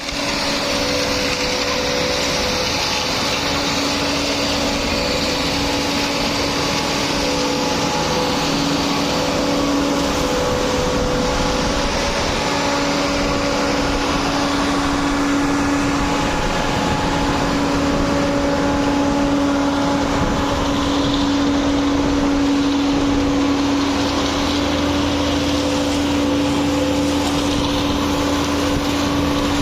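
Conmat self-loading concrete mixer running steadily, its engine and machinery giving a constant hum with a steady whine and no breaks.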